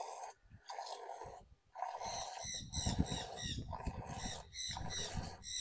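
A cow being hand-milked into a glass: milk squirting into the glass in short spurts, roughly one a second, with brief gaps between them.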